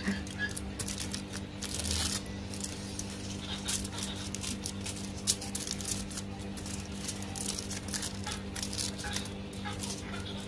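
Aluminium foil crinkling and crackling in irregular bursts as it is rolled and folded tightly around an embutido, over a steady low background hum.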